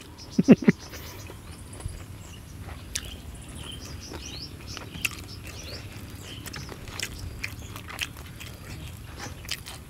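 Eating sounds: chewing, with scattered sharp clicks and crackles as the crispy-skinned roasted field rat is torn apart by hand.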